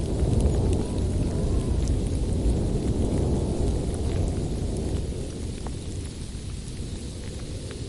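Low rumbling storm noise with a light patter of rain, easing off about five seconds in.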